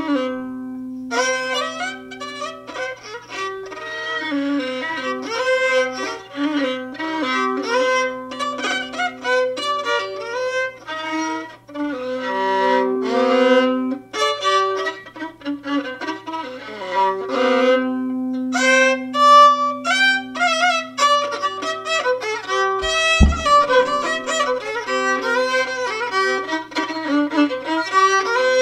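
Rarámuri violin music: a fiddle playing a melody of many short bowed notes with a few held ones. A brief low thump sounds about two-thirds of the way through.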